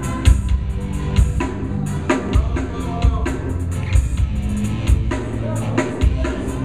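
Live band music with the drum kit prominent: sharp drum hits recurring over sustained bass notes.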